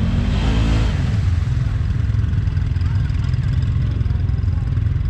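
Side-by-side UTV engine running steadily under throttle, with a brief rev that rises and falls in pitch about half a second in.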